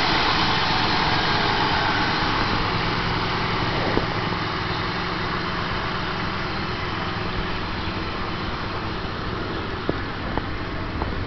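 A 1997 Acura CL's 3.0-litre V6 engine idling steadily and quietly, growing slowly fainter. A few light clicks are heard, one about four seconds in and two near the end.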